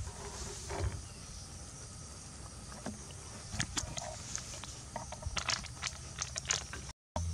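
Flour being added onto beaten egg in a stainless steel tray, with handling noise of light, sharp clicks and rustles that start about halfway in and come irregularly. Under them is a faint steady high insect hiss.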